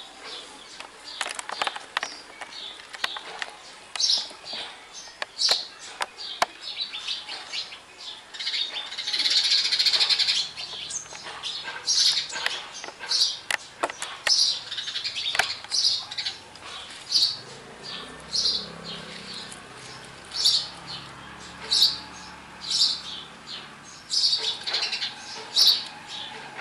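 A flock of house sparrows chirping, many short high chirps one after another, busiest about ten seconds in.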